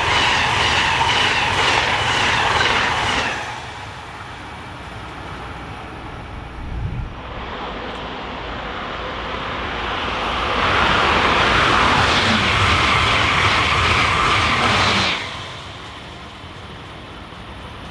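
Amtrak passenger coaches rolling past at speed with steady wheel-on-rail noise until the last car clears about three seconds in. A few seconds later an Acela high-speed trainset rushes past, loud for about five seconds before it cuts off sharply as its tail clears.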